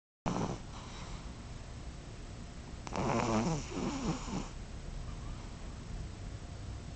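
A pet snoring: a short snore right at the start, then a louder, longer snore about three seconds in whose pitch wavers and slides. The owner puts the noisy breathing down to probable asthma.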